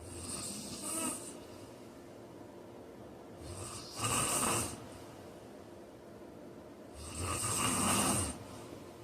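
A man snoring in his sleep: three snores about three and a half seconds apart, the first softer, the second and third louder and longer.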